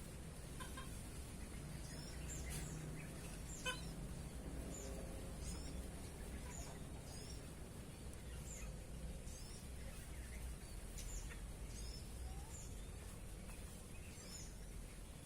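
A small bird chirping repeatedly, short high calls about once a second, over a low steady outdoor rumble.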